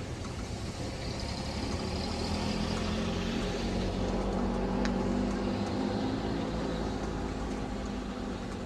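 Steady low rumble of a motor vehicle, with an engine hum that swells and fades as it passes. A single light click about five seconds in is the golf club striking the ball.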